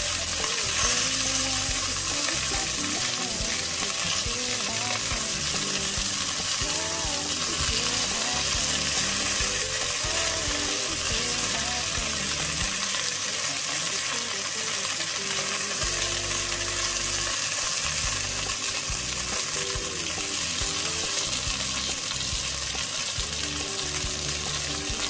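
Floured oxtail pieces sizzling steadily as they sear in hot oil in an enameled cast-iron Dutch oven, browning on the outside.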